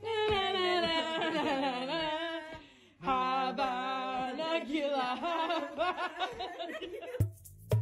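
Sustained, wavering singing-like vocal sounds in two long phrases, with a short break about three seconds in. Near the end it cuts abruptly to electronic music.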